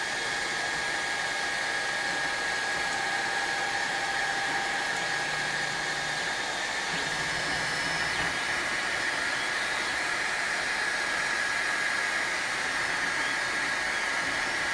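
Kingroon 3D180 3D printer's cooling fans whirring steadily with a thin high whine, as the printer begins laying down its first print. Short low stepper-motor hums come twice, about five and seven seconds in.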